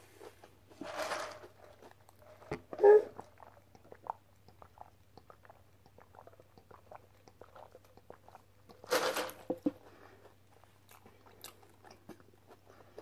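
Close-miked chewing of fast food, with many small wet mouth clicks, broken by a short louder sound about three seconds in and a breathy rush about nine seconds in.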